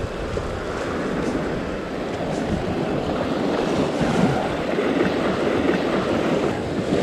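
Sea waves breaking and washing over a rocky shoreline in choppy water, with wind buffeting the microphone.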